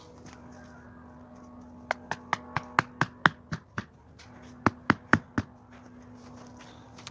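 A quick run of about nine sharp taps, a pause of about a second, then a shorter run of five, over a faint steady hum.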